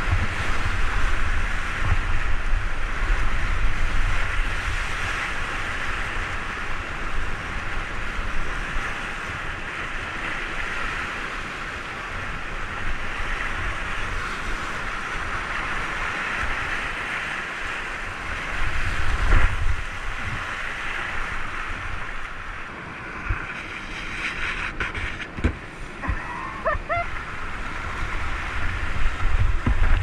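Whitewater rushing and churning around a whitewater kayak running a rapid, with steady low buffeting on the microphone. The rumble swells briefly about two-thirds of the way through.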